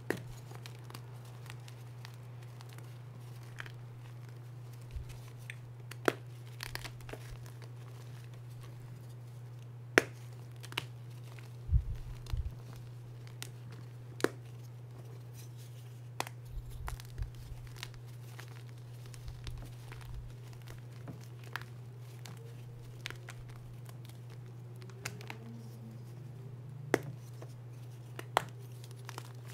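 Hands squeezing and crushing blocks of reformed gym chalk (Cap and Easy Grip) in loose chalk powder, a soft crumbling crunch broken by scattered sharp cracks as pieces snap. A steady low hum runs underneath.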